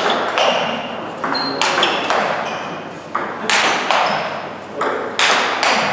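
Table tennis rally: sharp clicks of the celluloid ball off the bats and the table, roughly two to three a second and irregular, each with a short ping that echoes in the hall. The forehand bat carries Palio AK47 Red rubber, driving topspins and smashes against chopped returns.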